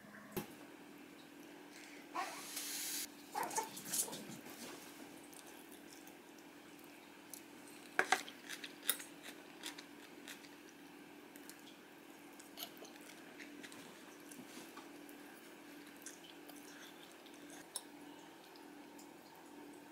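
Quiet table-eating sounds: a short noisy burst about two seconds in, then light clicks of metal chopsticks against the dishes and noodle cup, clustered about eight seconds in and sparser afterwards. A faint steady hum runs underneath.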